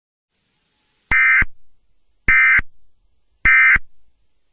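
Emergency Alert System end-of-message signal: three short bursts of SAME digital data tones, each about a third of a second long and about a second apart, starting about a second in. They mark the end of the alert.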